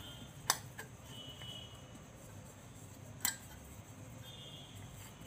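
Fingers rubbing oil into the cups of a stainless-steel idli mould, with two light metallic clicks from the steel plate, about half a second in and again about three seconds in.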